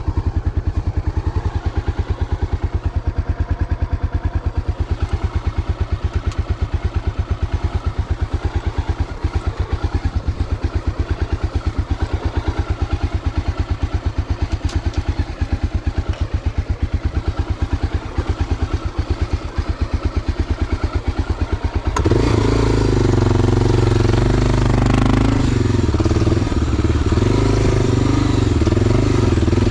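Enduro motorcycle engine running at low revs with an even, pulsing beat; near the end it opens up, running louder and higher under throttle.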